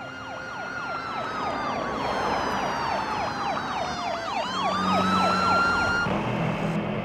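Two emergency vehicle sirens sounding together, one a fast yelp and the other a slow wail that falls and then rises again. They grow louder over the first seconds and cut off suddenly about six seconds in.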